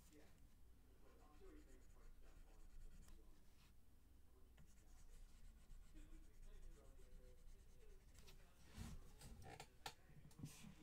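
Faint scratching of a stylus pen drawing strokes on a graphics tablet, with a few soft knocks near the end.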